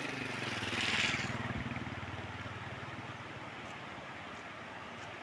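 A vehicle engine running with a low hum, and a brief rushing swell about a second in. The hum fades after about three seconds, leaving a steady rush of noise.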